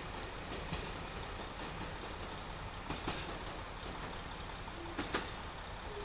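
Train rolling along the track with a steady rumble. Its wheels clack over rail joints a few times, in quick pairs about 3 and 5 seconds in.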